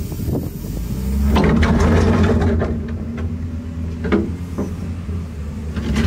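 Case wheel loader's diesel engine running as it pushes snow past, louder about a second or two in as it comes close, then easing as it moves off, with short scrapes and knocks from the bucket on the driveway.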